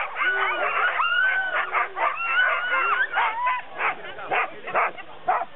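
A pack of sled dogs yipping and howling together: many overlapping high cries that rise and fall, breaking into separate short yelps near the end.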